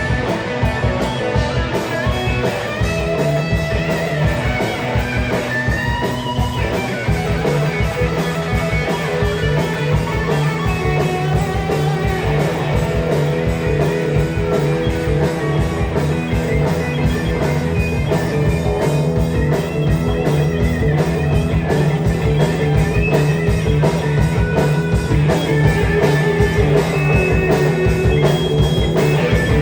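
Live rock band playing: electric guitar over a drum kit, with a steady beat.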